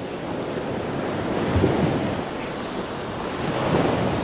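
Sea waves breaking and washing up a sandy beach, swelling twice, with wind noise on the microphone.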